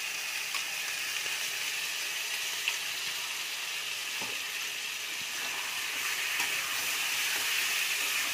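Potatoes frying in hot oil in a kadai, a steady sizzle, with a few light clicks of a spoon on metal. It grows a little louder near the end as a spatula starts stirring.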